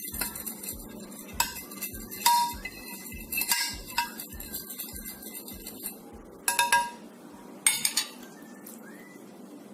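Metal spoon stirring liquid marinade in a glass dish: scraping with sharp ringing clinks against the glass, the loudest in quick clusters near the end.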